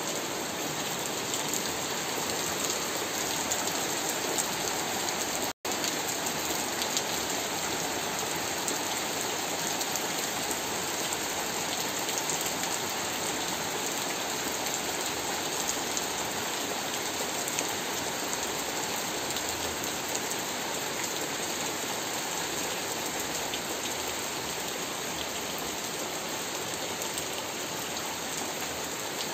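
Steady rain falling on leaves, concrete paths and puddles. The sound drops out for an instant about five and a half seconds in.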